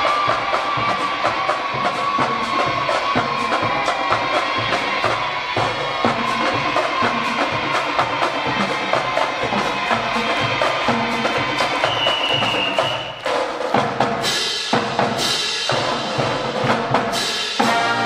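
High school marching band playing, driven by a steady percussion beat of drums and wood block under held pitched lines, with a few loud accented hits by the full band in the last few seconds.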